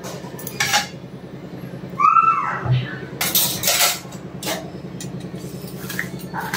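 Kitchen dish handling: a plastic plate and spatula clinking and knocking as a sandwich is moved off a griddle and the plate is set down on a stone counter. A short squeak about two seconds in and a louder clatter a little after three seconds, over a steady low hum.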